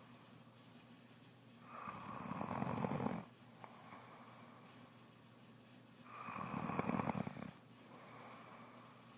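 A pregnant woman snoring in her sleep: two long, rattling snores about four seconds apart, with quieter breaths between them. The snore began soon after she became pregnant.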